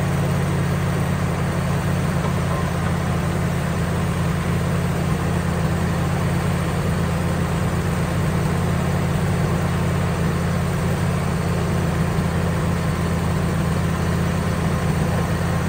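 Wood-Mizer LT15 portable sawmill's engine idling steadily, with no change in speed.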